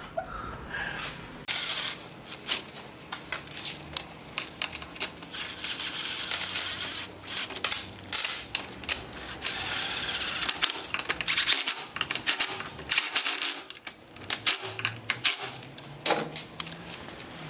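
Metal hand tools clicking and clinking against bolts and brackets as motorcycle landing gear is bolted on, in quick irregular metallic ticks and rattles.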